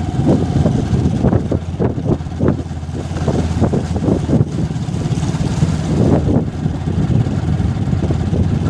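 Motorcycle engine running steadily as the bike rides along, a continuous low rumble with short irregular flares.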